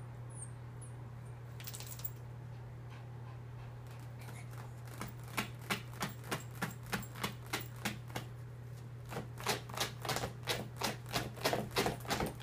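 A chihuahua scratching with her claws at the fabric and mesh of a zippered dog stroller, trying to dig her way out. It comes as a rapid rhythmic run of scratches, about three a second, starting about four seconds in. It pauses briefly, then picks up again faster.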